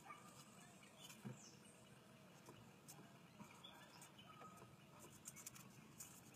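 Near silence: a faint background with a few faint, short high chirps and light ticks.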